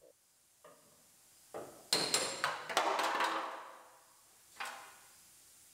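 Sheet-steel cab corner panel being knocked and pried loose with a hammer and scraper. A few light knocks come first, then about two seconds in a loud metallic clatter that rings on for nearly two seconds, and a single clank near the end.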